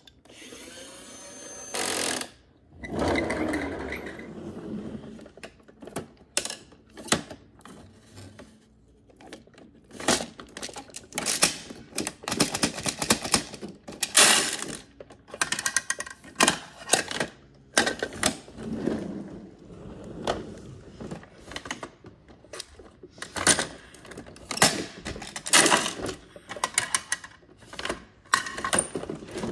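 Irregular clicking, knocking and clattering of hard plastic as toy garbage trucks' lifting arms are worked by hand and small plastic wheelie bins are tipped and set down on a wooden floor. Near the start there are a few seconds of rougher continuous noise instead of clicks.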